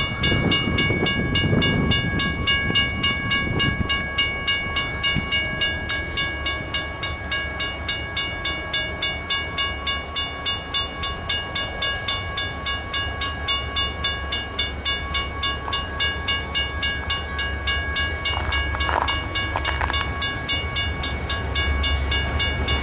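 Railroad grade-crossing bell ringing steadily at about two strikes a second, over the low rumble of an approaching diesel freight train.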